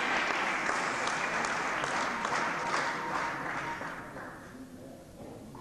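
Spectators applauding a won point in a table tennis match. The clapping fades out about four seconds in.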